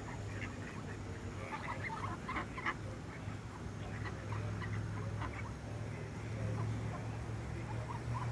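A flock of mallard ducks feeding on grass, giving short scattered quacks and calls that are busiest around two to three seconds in, over a steady low hum.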